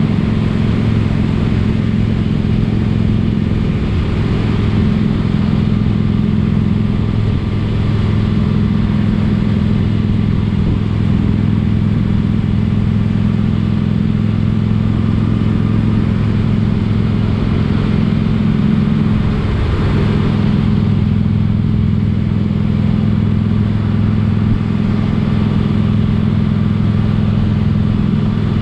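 Motorcycle engine running at a steady cruise, with a brief dip in pitch about two-thirds of the way through.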